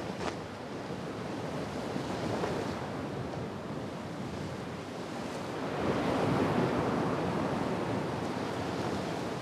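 Sea waves washing with wind, a steady rushing noise that swells about six seconds in.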